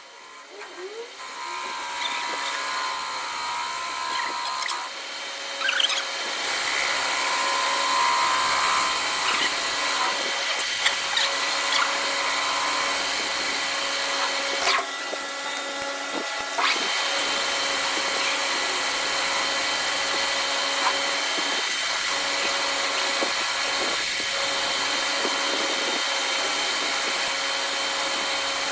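Metal-cutting machine tool running and cutting steel: a steady mechanical din with a constant hum, and a high whine that comes and goes in stretches of a few seconds.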